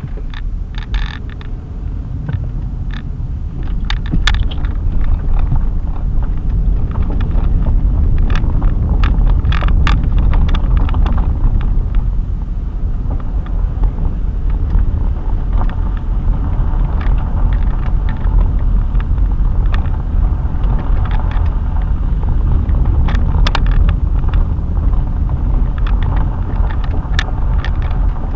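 Car cabin noise while driving: a steady low rumble of road and engine that gets louder from about four seconds in, with scattered small clicks and rattles.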